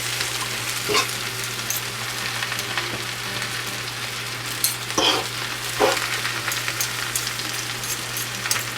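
Spinach, garlic and onions sizzling steadily in oil in a frying pan, with a few short knocks of a stirring utensil against the pan.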